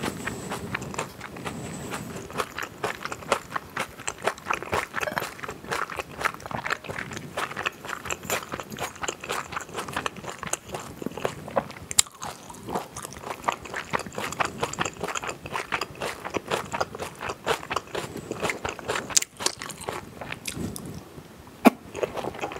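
Close-miked eating sounds: chewing and crunching of food, with many small sharp crunches and wet mouth clicks throughout. Now and then a metal spoon scrapes the plate or clinks against a small metal bowl.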